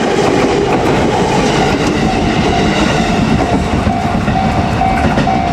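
JR Kyushu 787-series electric limited express train running past close by, its wheels clattering on the rails. From about two seconds in, a level-crossing warning bell rings about twice a second over the train noise.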